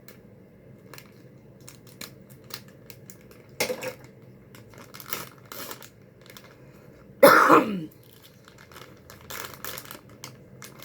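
Plastic candy packaging crinkling and clicking as a bag of gummies is handled, with a louder rustle about three and a half seconds in. About seven seconds in comes a loud burp lasting about half a second and falling in pitch.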